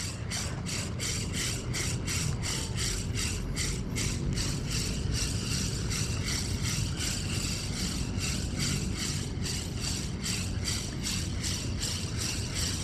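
Ryobi Ultrapower 1000 spinning reel being cranked steadily on a lure retrieve, giving an even rattling tick about four times a second, over a low steady rumble of wind and sea.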